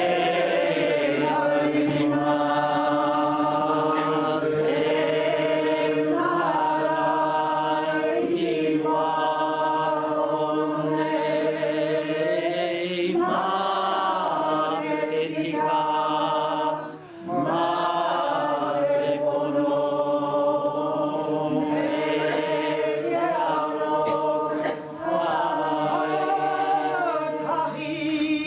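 A group of men's and women's voices singing a slow Māori waiata together, with held notes and a brief break about halfway through.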